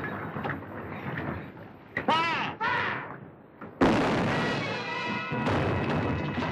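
Cannon fire: a sudden loud boom about four seconds in, its noise running on under orchestral music. A brief shout comes just before it, about two seconds in.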